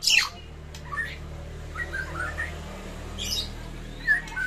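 White-rumped shama singing in broken phrases: a loud downward-sweeping note at the start, then softer scattered chirps and a short harsh note about three seconds in. A faint low steady hum runs underneath.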